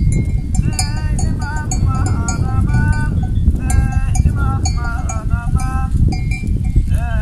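A flock of sheep and goats bleating, many short wavering calls overlapping one another, with livestock bells clinking, over a loud rough low rumble.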